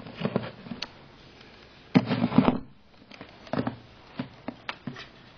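Handling noise from a digital multimeter and its test leads: scattered knocks and rustles, with the loudest jumble of bumps about two seconds in, followed by several short light clicks.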